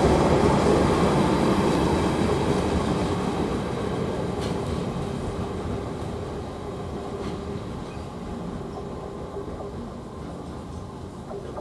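Freight train wagons, largely empty container flats behind a Class 66 locomotive, rolling past on the rails. The sound fades steadily as the train draws away.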